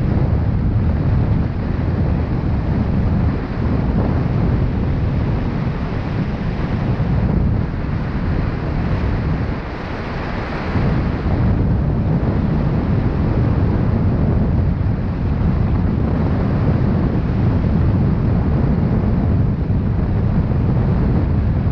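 Wind buffeting the microphone, a steady loud rumble that eases briefly about ten seconds in.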